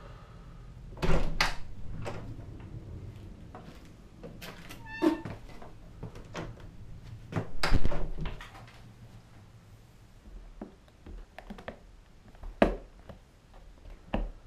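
Knocks and thuds of a wooden cabin's glass-panelled door as someone comes in through it, with a short squeak between them. Then small clicks and rattles of clear plastic tackle boxes being opened and handled on a wooden table.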